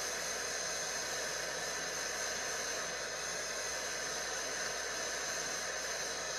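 Propane-oxygen glassworking torch burning with a steady hiss, its flame fire-polishing the last attachment point of a glass marble smooth.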